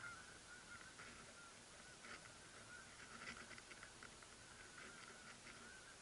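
Faint, distant flock of geese honking, with many short calls overlapping.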